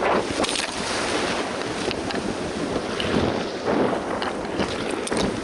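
Ocean surf washing and foaming, with wind buffeting the microphone and a few brief knocks or rustles.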